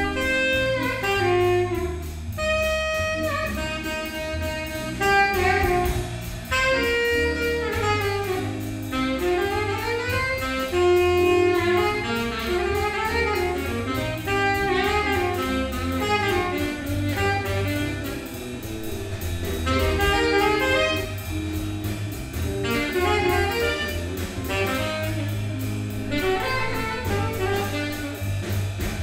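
Live small-band jazz: a saxophone carries the lead line with quick runs of notes over a drum kit, electric bass and electric guitar.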